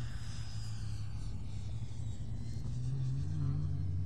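Electric ducted fan of an FMS 80mm Integral RC jet whining in flight, a thin high tone that fades as the jet climbs away, over a steady low rumble.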